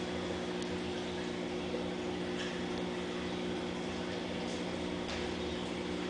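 A steady low mechanical hum holding several even tones, with a few faint short ticks over it.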